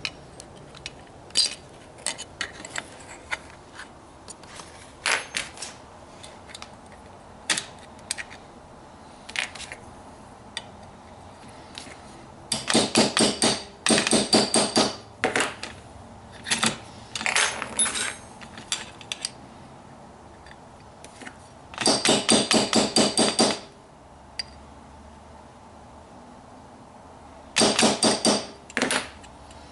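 Small hammer tapping a starter punch to drive a part into a rifle's lower receiver: scattered light metallic clicks, with three runs of quick, rapid taps lasting a couple of seconds each.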